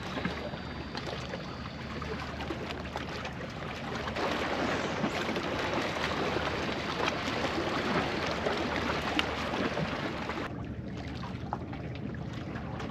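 Sea water washing and gurgling among shoreline rocks: a steady rushing noise that loses some of its hiss about ten seconds in.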